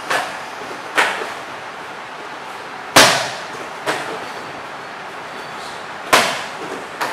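Gloved jabs and teep (push) kicks smacking Thai pads: three pairs of sharp slaps about a second apart, the loudest about three seconds in, over a steady hiss.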